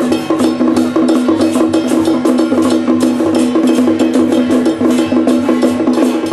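Temple procession music: fast, dense percussion strikes over a steady pitched tone holding two low notes together.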